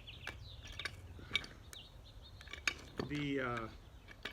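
Scattered metal clicks and clinks of a pipe wrench on a pipe fitting, with a short falling voiced sound about three seconds in.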